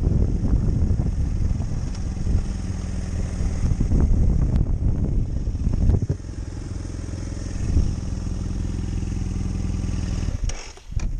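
Adventure motorcycle riding on a gravel road, then slowing to a stop about six seconds in, its engine idling steadily.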